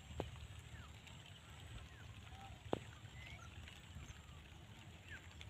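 Faint outdoor field ambience: scattered short bird chirps over a low rumble, with two sharp clicks, one just after the start and a louder one about halfway through.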